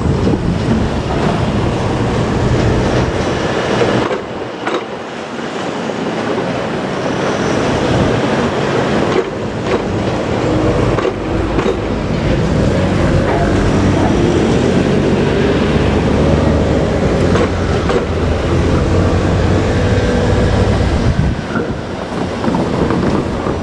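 JR Kyushu 817 series electric multiple unit running on the rails, with a steady loud rumble and clatter of its wheels on the track.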